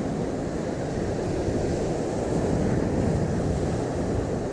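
Surf breaking and washing over the rocks close by, a steady rush that swells a little in the middle, with wind buffeting the microphone.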